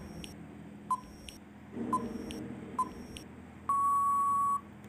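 Quiz countdown-timer sound effect: three short, same-pitched beeps about a second apart, then one long, steady beep of about a second as the timer runs out.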